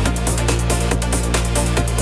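Electronic dance music with sustained bass notes and a steady fast beat, about four drum hits a second.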